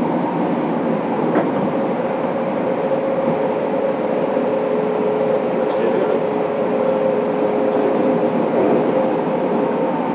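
Fukuoka City Subway 1000-series electric train running through the tunnel, heard from inside the car: a steady rumble of wheels and running gear with constant-pitch tones held over it. One of the tones stops near the end.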